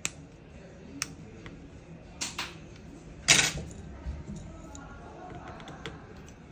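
Small sharp clicks and taps of precision tools and a tiny screw being handled on a phone-repair bench, with a louder short clatter a little past three seconds in.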